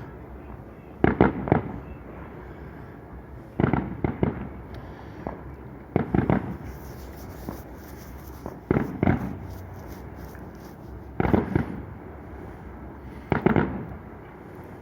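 Aerial firework shells bursting in the sky: about six booms, each a quick double or triple bang with a rumbling tail, spaced roughly every two and a half seconds.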